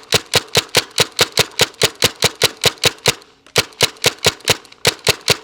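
Tippmann TMC mechanical paintball marker fired semi-automatically in a rapid string, about five shots a second, with a short pause a little past three seconds in. It is being shot continuously to run down the air tank.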